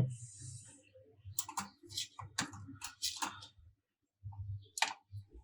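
Scattered light clicks and scrapes of a laptop hard disk drive being handled and worked loose from its bay, most of them bunched in the first half, with a couple of sharper clicks near the end.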